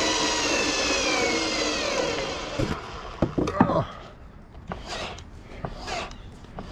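Cordless drill driving a screw into old timber, its motor whine falling steadily in pitch as it slows under the load, on a nearly flat battery. It stops about two and a half seconds in, followed by a few short knocks and clicks.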